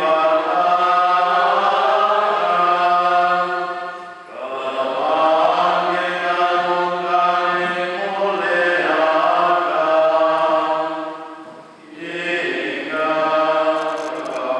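Liturgical chant of the Mass sung in slow, held phrases by voices in unison, with short breaks for breath about four and twelve seconds in.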